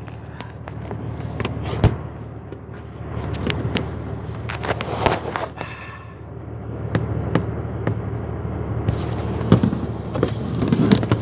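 Steady low rumble of a vehicle cab on the move, with many irregular knocks, clicks and rubs from a handheld phone being moved and gripped against its microphone.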